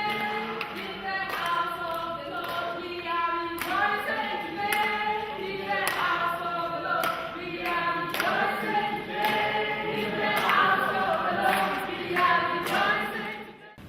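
Choir singing with held notes that move in several parts, ringing in a large reverberant cathedral. It cuts off abruptly near the end.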